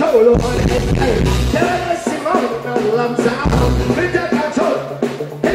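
Live reggae band playing with a heavy bass line while a male vocalist sings into a handheld microphone over the amplified mix.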